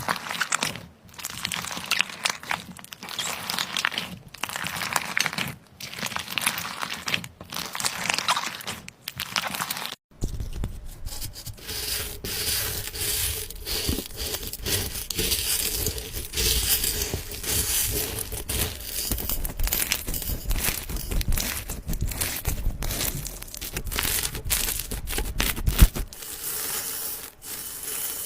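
Slime being squeezed, stretched and pressed by hand, giving a crackly, crinkling, tearing texture. For the first ten seconds it comes in handfuls with short pauses about every second and a half. It then changes suddenly to steady, continuous working with a low rumble underneath.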